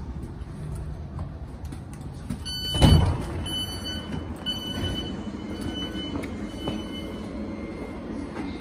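Thameslink Class 700 train standing at the platform with its doors open: a loud thump about three seconds in, then a run of short electronic door beeps over the next few seconds, over the train's steady low hum.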